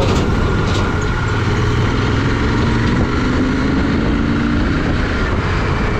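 Motorcycle riding along a highway: steady engine hum under loud, even wind and road noise on the microphone.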